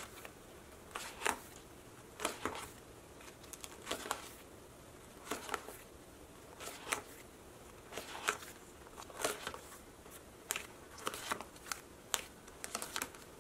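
Clear plastic pocket pages in a ring binder being flipped one after another, each page turn a short, quiet crinkling rustle, roughly one a second.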